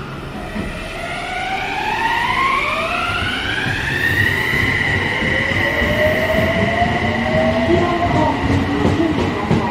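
Odakyu electric train's traction motors whining as it gets under way: several tones rise together in pitch for about four seconds and then hold steady, while a second, lower whine starts rising about halfway through. Wheel rumble grows underneath, with clicks over the rail joints near the end.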